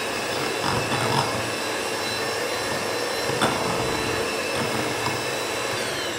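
Handheld electric mixer running steadily with a whine, its beaters creaming butter and powdered sugar in a glass bowl, with one brief knock about three and a half seconds in.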